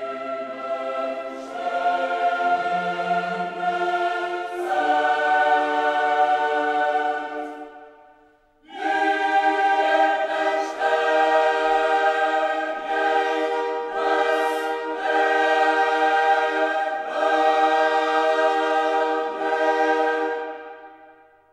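Background music: a choir singing long held chords in two phrases, the first fading out about eight seconds in and the second, louder one fading out near the end.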